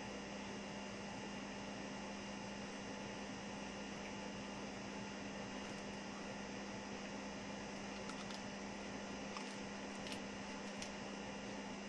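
Steady low electrical hum over a faint hiss: room tone, with a couple of faint clicks in the second half.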